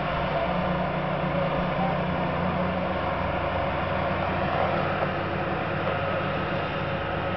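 Diesel engines of a line of seismic vibrator (Vibroseis) trucks running, a steady low drone.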